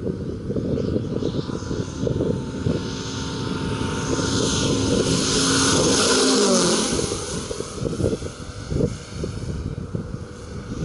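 Moki S180 five-cylinder radial engine of a CY Models La-7 scale RC warbird on a low, fast pass: the engine note builds, is loudest about six seconds in as the plane goes overhead, then drops in pitch as it flies away. Wind buffets the microphone.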